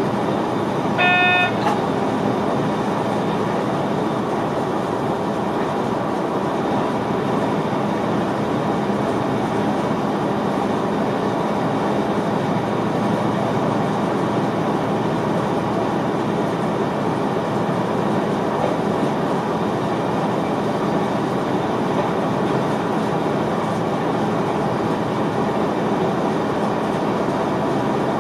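Steady running noise inside the cab of an NS VIRM double-deck electric train under way. About a second in, a short toot lasting about half a second sounds over it.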